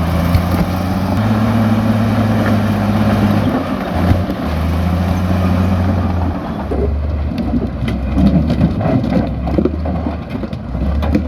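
Komatsu bulldozer's diesel engine working under load, its pitch stepping up and down as it pushes. About two-thirds of the way in, repeated knocks and clattering join it.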